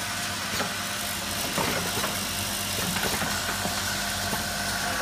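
Automatic aluminum tube laser marking machine running: a steady mechanical hum with light clicks and rattles, and a steady higher whine that comes in about three seconds in.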